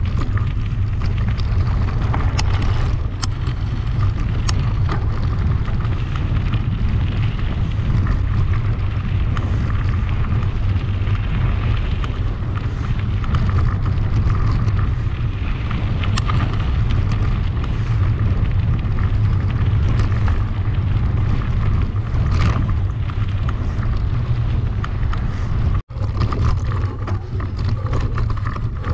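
Wind buffeting the microphone of a camera riding on a mountain bike, over a steady rumble of tyres with scattered rattles and clicks from the bike on rough ground. Near the end the sound cuts out for an instant.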